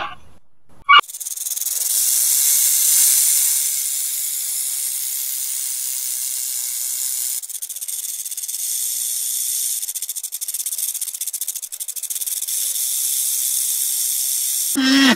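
Snake hissing: a long, steady, high-pitched hiss that goes on for about fourteen seconds, growing slightly fluttery halfway through.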